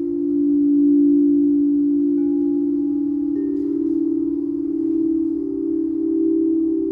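Singing bowls ringing in a long sustained tone that slowly pulses in loudness, with a second, slightly higher tone joining about three and a half seconds in and a few faint higher notes ringing briefly above.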